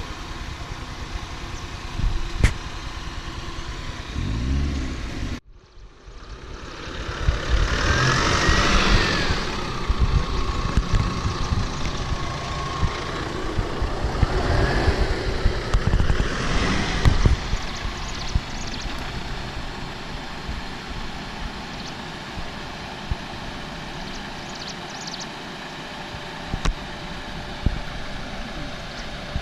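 Off-road vehicle engine running and revving up and down as it works over a rough track, with the sound cutting out briefly about five seconds in.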